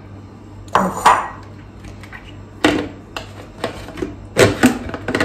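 Kitchen handling clatter: a series of irregular knocks and clinks as vegetable pieces are taken out of and moved around a food chopper's bowl.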